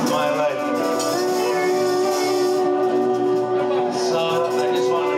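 Live folk-rock band playing, guitars and keyboard, with one long note held from about a second in until near the end.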